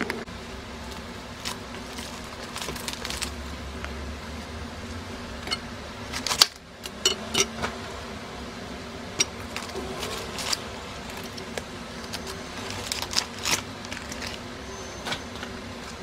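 Kitchen prep on a cutting board: scattered, irregular clicks and knocks as a head of cabbage is handled and cut, the loudest about six seconds in, over a faint steady hum.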